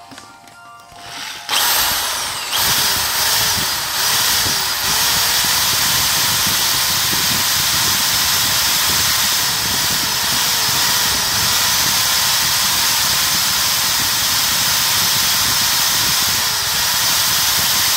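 Power drill boring through the black plastic air intake duct, starting about a second and a half in and then running steadily.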